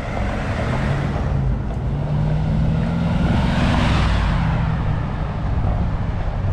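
Mercedes-Benz G-Class driving past close by, its engine note rising slightly and its road noise loudest about four seconds in, then easing off as it pulls away.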